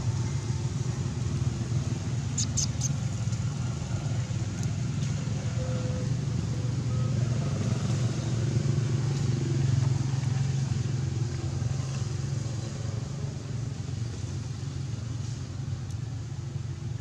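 A motor engine running steadily with a low hum. A few sharp clicks come about two and a half seconds in.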